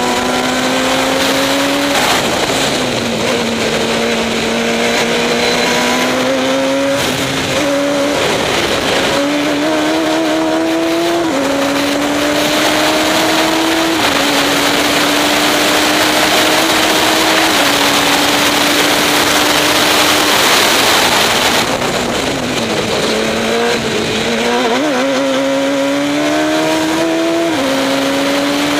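Radical SR3 race car's engine at full throttle, climbing in pitch and dropping back at several quick upshifts, with heavy wind rush. About three quarters of the way through the engine note falls away under braking and downshifts, then climbs through the gears again.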